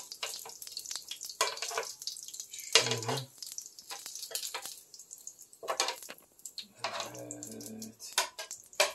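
Metal tongs clicking and scraping on the ribbed plate of an electric contact grill as grilled meatballs are lifted off and set on plates, over a light sizzle from the hot grill.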